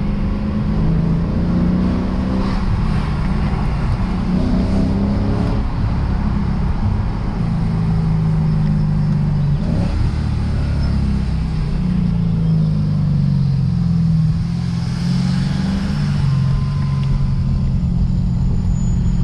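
Lexus RC F's 5.0-litre V8 running at low, fairly steady revs while driving, its pitch rising and falling a little, over a constant low rumble from the road.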